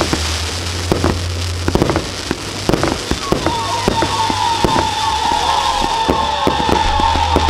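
Fireworks display: a rapid run of sharp bangs and pops over steady crackling, with a wavering whistle-like tone joining about three seconds in.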